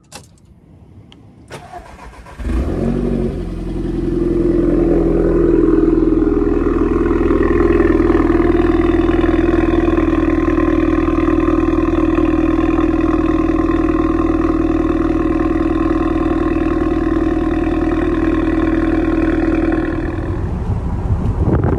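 Cold start of a VW Golf Mk5 1.4 TSI twincharged four-cylinder running a decat downpipe. The engine cranks and catches about two seconds in and flares up. It settles into a loud, steady high cold idle that drops a little near the end.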